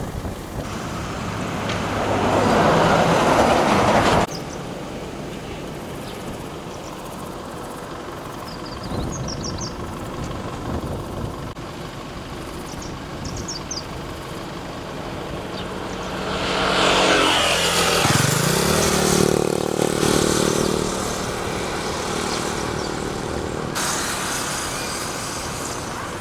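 Motor vehicles passing by. A loud rush of noise cuts off suddenly about four seconds in. About sixteen seconds in, one engine grows loud, its pitch sliding down and then holding before it fades.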